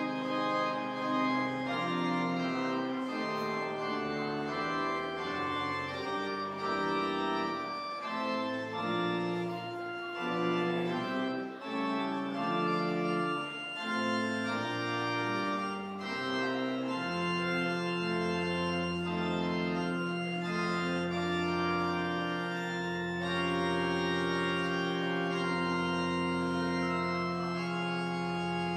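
Organ music: sustained chords moving steadily for the first half, then one long chord held through the last ten seconds or so.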